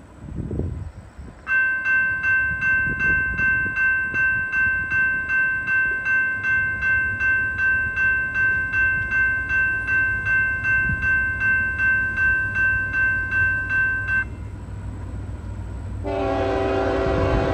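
Railroad grade-crossing bell ringing in an even, steady beat of about two and a half strokes a second, then stopping. Near the end a diesel locomotive's air horn blows a long chord as an approaching CSX freight train sounds for the crossing.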